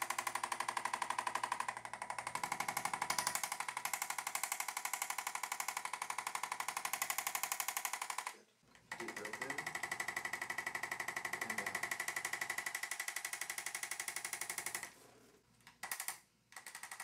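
Handheld electric percussive chiropractic adjusting instrument running against the neck and shoulder, a rapid, steady stream of taps. It stops briefly about eight and a half seconds in, starts again, then cuts out near the end apart from one short burst.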